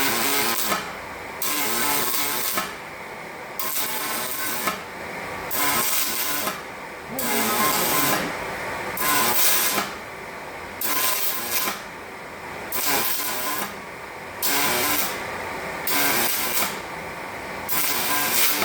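Aluminium welding arc struck in short, regular bursts, each about a second long with a brief pause between, about ten times: stitch-welding a bar with pure argon shielding gas.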